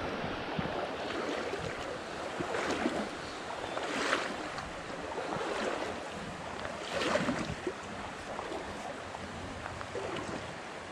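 Shallow stream riffle running over stones: a steady rush of water with brief louder surges every second or so.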